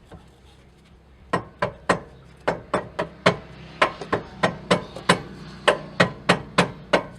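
Mallet striking a brake pad to seat it in a StopTech brake caliper: a string of sharp blows, about three a second, starting a little over a second in.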